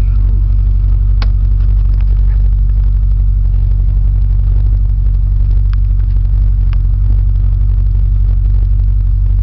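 Twin-turbocharged 2005 Chevrolet Corvette C6's LS2 V8 idling steadily, with a few short clicks.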